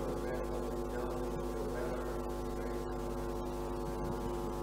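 Steady electrical mains hum, a stack of even tones holding level throughout.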